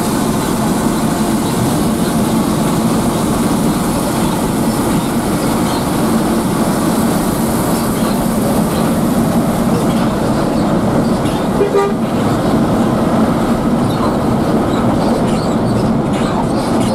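Inside a moving intercity coach: steady, loud engine and road noise with a constant low hum. A brief horn toot comes about twelve seconds in.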